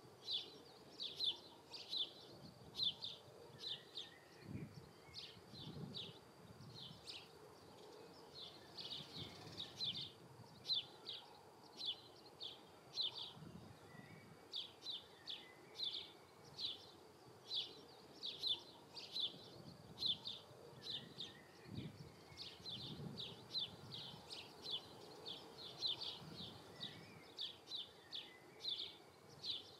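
Faint spring-field ambience: short high chirps, all at the same pitch, repeat two or three times a second with a few brief pauses. Now and then a low hum passes for about a second.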